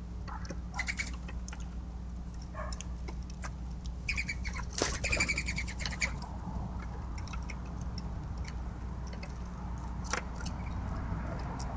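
Mourning dove wings whistling and fluttering as a dove flies in and lands: a short burst about a second in and a longer, louder one around the middle, over a steady low hum.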